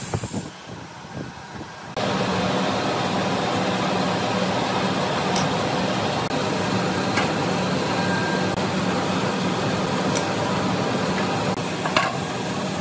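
Steady drone of workshop machinery running, with a low hum, coming in suddenly about two seconds in after a couple of seconds of quieter knocking; a single sharp click near the end.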